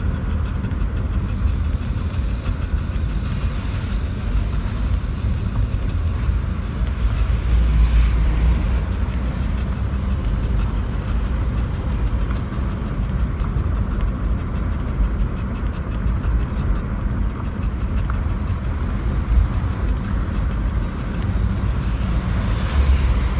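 Steady road and wind noise of a moving car, heard from inside the cabin with a window down.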